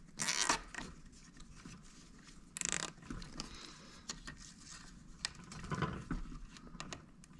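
Nylon zip tie being pulled tight through its ratchet: two short zipping rasps, about half a second in and again near three seconds, with light clicks and plastic handling noise between.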